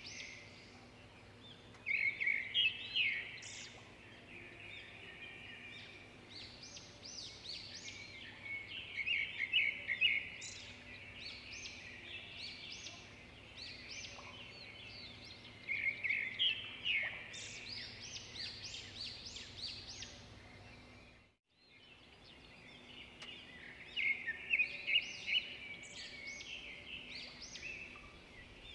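Birds chirping and twittering in repeated bursts, with a brief dropout of all sound a little past the middle.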